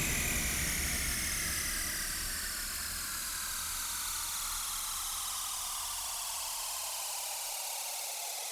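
Synthesized white-noise sweep ending an electronic track: a steady hiss with several tones gliding slowly downward, while the low bass fades out near the end.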